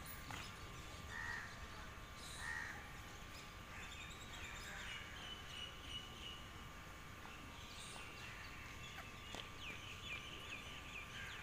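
Faint outdoor ambience with birds calling: a few short calls in the first seconds, then a run of quick chirps in the middle and again near the end, over a steady thin high hum.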